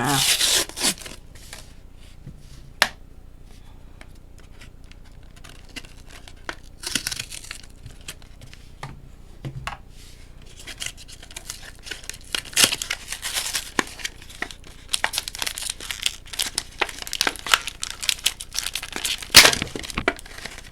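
Packaging of a Pokémon card blister pack being torn open and crinkled by hand: a loud rip at the start, then stretches of irregular crackling and ripping that grow busier in the second half, with the loudest tear near the end.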